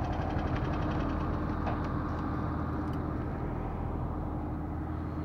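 Small underbone motorcycle engine idling steadily, with a couple of light clicks about two seconds in.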